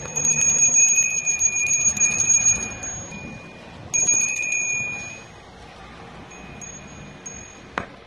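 Small metal hand bell shaken rapidly, its clapper striking fast, ringing in a burst of about three seconds and a shorter burst of about a second, then a few single light strikes. It is rung to call the chickens.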